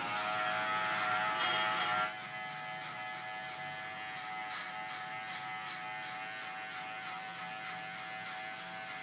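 Andis Master magnetic hair clipper with a #1 guide buzzing steadily while blending the sides of a short haircut. It is louder for about the first two seconds, then settles to a quieter, even buzz.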